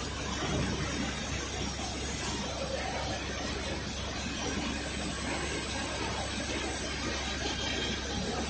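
CNC stone machining centre's spindle working a white stone slab under water coolant jets: a steady hiss of spray mixed with machine noise and a low hum.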